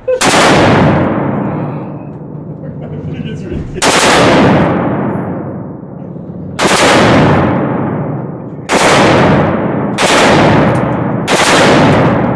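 MP5 submachine gun fired in six short bursts of automatic fire, a few seconds apart at first and closer together near the end. Each burst rings on in the echo of an indoor range.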